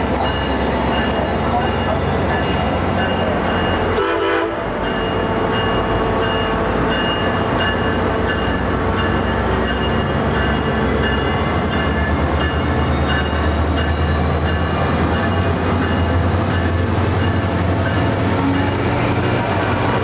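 MotivePower MP32PH-Q diesel-electric locomotive running as it rolls slowly into the platform: a steady low drone with several steady higher tones above it. The drone grows louder in the second half as the locomotive draws alongside.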